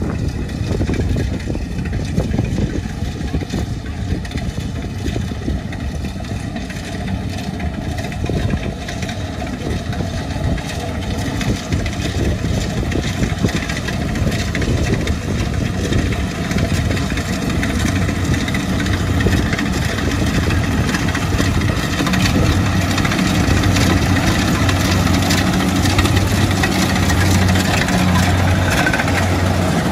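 Kubota DC70 rice combine harvester running as it cuts and threshes rice, a steady engine and machinery sound. It grows louder as the machine comes closer, and a pulsing engine note stands out near the end.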